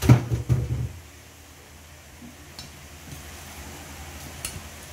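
A brief cluster of knocks and thumps in the first second as things are handled at the table by the steel mixing bowl of mashed tofu, then low room noise with a couple of faint clicks.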